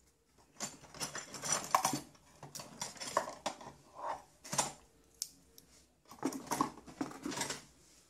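Hands opening a small wire connector and handling hand tools at a workbench: clicks, rustles and light metallic clatter in several bursts with short pauses between.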